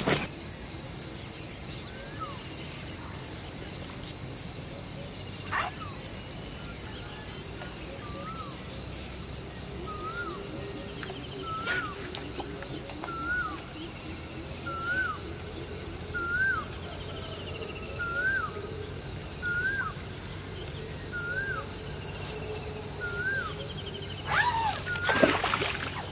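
Riverside ambience: a steady high-pitched insect drone, with a bird repeating a short up-and-down whistled note about every one and a half seconds through the middle. A few sharp knocks and rustles near the end.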